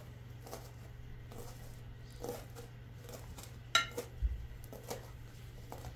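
Kitchen knife chopping fresh coriander on a plastic cutting board: a few faint, irregular taps of the blade on the board, the sharpest nearly four seconds in.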